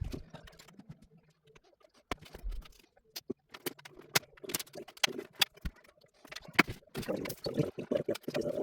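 Irregular clicks, taps and knocks of desktop computer parts being handled inside the case, growing busier with rustling handling noise near the end. A faint low hum stops about a second and a half in.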